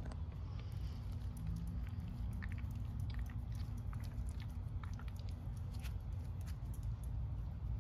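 Small scattered crackling clicks of a hand scratching a shaggy dog's fur, over a steady low rumble.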